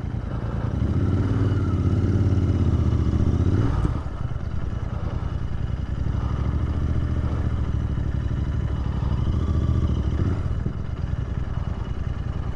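Royal Enfield Interceptor 650's parallel-twin engine running at low speed on a gravel track. Its note builds over the first second, drops back suddenly about four seconds in, then runs steadily.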